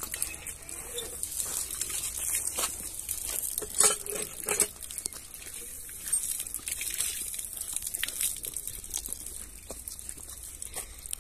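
Hand water pump being worked, water splashing from its spout onto the concrete apron, with irregular knocks and clicks from the pump.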